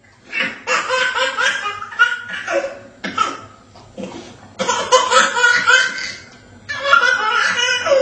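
Hearty laughter in several bouts with short breaks between them.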